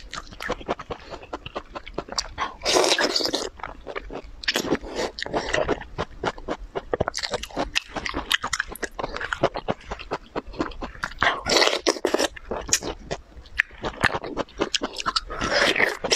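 Close-up biting and chewing of a juicy thawed frozen pear: wet crunching and smacking, with a few louder, longer wet sounds about three seconds in, about twelve seconds in and near the end.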